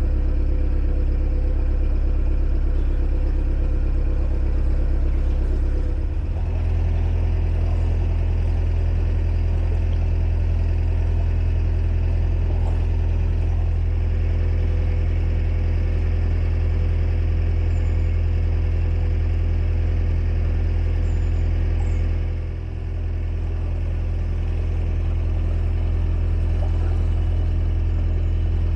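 Narrowboat engine running steadily under way. Its note changes about six seconds in, and it briefly dips in level a little past the twenty-second mark.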